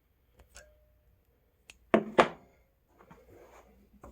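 Metal clicks and taps of pliers gripping a metal D-ring clamped in a vise as it is bent slightly open at its seam. There are a few light ticks, then two sharper clicks about two seconds in, followed by faint scraping.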